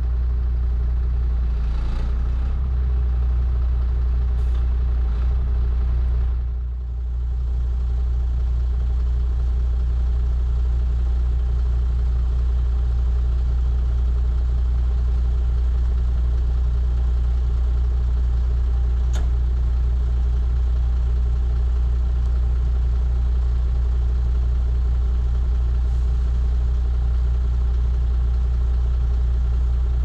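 MAN 4x4 truck's diesel engine idling steadily, a deep even hum.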